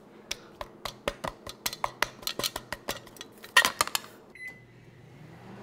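Metal food can knocked and shaken against a paper bowl to get the canned macaroni and cheese out: a quick, irregular run of clicks and knocks, the loudest about three and a half seconds in. Then comes a short microwave beep and the low hum of the microwave oven starting to run.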